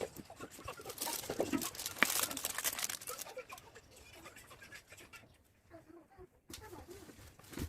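Packaging material rustling and crinkling as it is handled. It is busiest in the first few seconds and quieter after about the middle.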